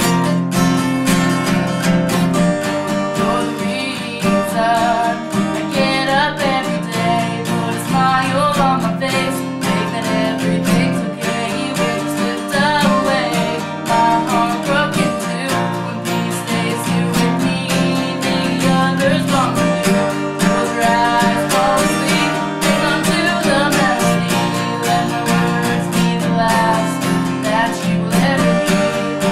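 Strummed acoustic guitar with a voice singing over it, an original song.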